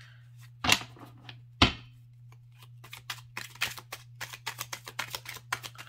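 Tarot cards being handled and shuffled. Two sharp knocks of the deck come in the first two seconds, then a quick run of card clicks at several a second, over a steady low hum.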